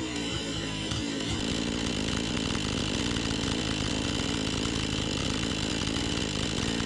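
Husqvarna 435 two-stroke chainsaw running steadily.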